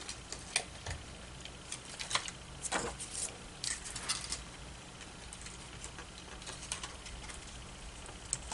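Cut cardstock pieces being handled and pressed into place, with scattered light clicks and paper rustles, busiest in the first half.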